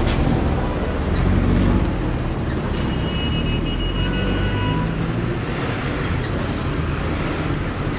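City buses passing close by with a low engine rumble over steady street traffic. A few faint high tones come through in the middle.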